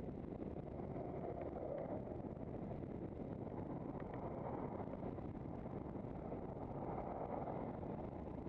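Road traffic passing at speed close by, over wind noise on the microphone of a camera on a moving handcycle. The traffic swells about a second in and again near the end as vehicles go by.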